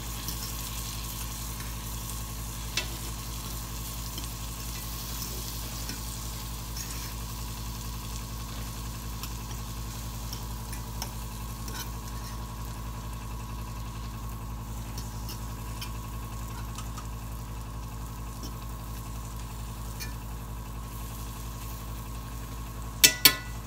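Filet mignon steaks and mushrooms sizzling steadily in butter in a cast-iron skillet. A utensil clicks lightly against the pan now and then, and there is a quick series of loud sharp knocks near the end.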